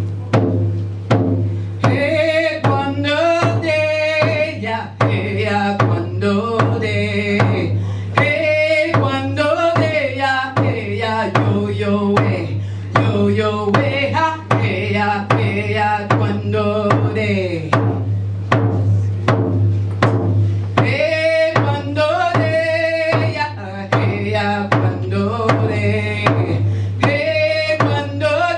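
Music: a steady drum beat of about two strokes a second over a low steady drone. A voice sings a melody over it from about two seconds in, breaks off for a few seconds in the middle, then comes back.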